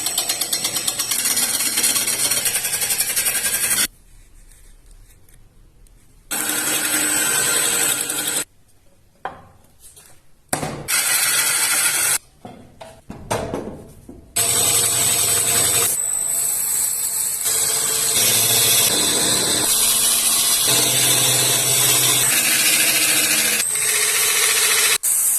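Wood being cut on a bowl-turning lathe: a loud, steady rasping tool noise in several spliced stretches that start and stop abruptly, with a thin high whine in the later ones.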